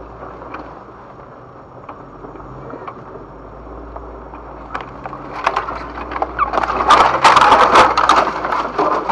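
Tree branches scraping, crackling and snapping against a Jeep Wrangler and its ham radio antenna as it pushes through brush. It starts about five seconds in and is loudest near the end, over the low steady hum of the engine.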